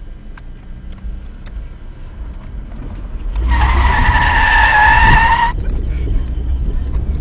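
Car tyres squealing for about two seconds, starting about three seconds in, over the low rumble of the car.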